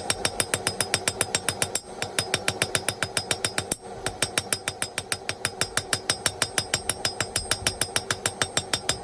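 Small blacksmith's hammer striking hot 3/8-inch round steel stock on the anvil in quick, even blows, about five or six a second with a metallic ring, rounding off the tip of a drawn-out point. The hammering breaks off briefly twice, near two and four seconds in.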